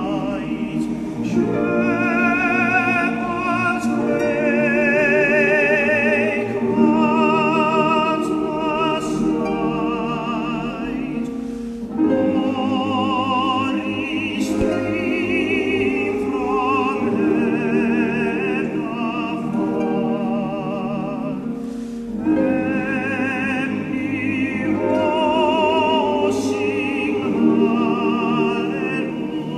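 Music: classical-style singing with a strong vibrato, in long sustained phrases that break off about every ten seconds.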